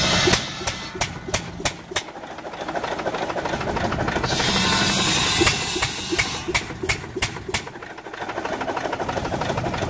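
Circular buck saw belt-driven by a single-cylinder New Holland hit-and-miss engine, hissing as it cuts through wooden slabs, twice: at the start and about four seconds in. After each cut come runs of sharp knocks a fraction of a second apart: the engine firing repeatedly to recover speed under the load.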